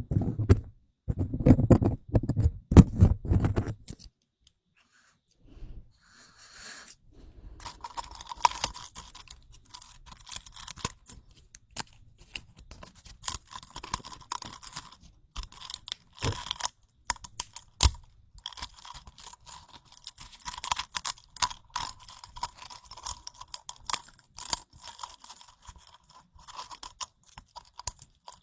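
Loud low thumps of handling close to the microphone in the first three seconds, then after a short pause a long stretch of dense, crisp crackling and crunching, like something dry and brittle being rustled and crushed by hand.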